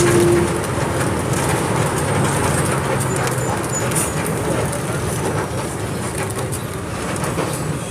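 Diesel engine of a Volkswagen 17.230 EOD bus running steadily, its level easing slightly over the seconds.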